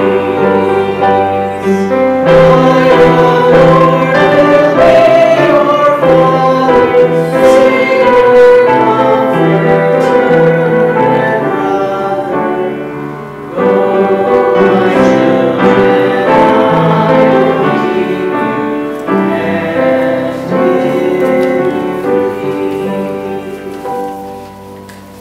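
Church hymn music: voices singing held notes over instrumental accompaniment, in phrases with short breaks, fading away near the end.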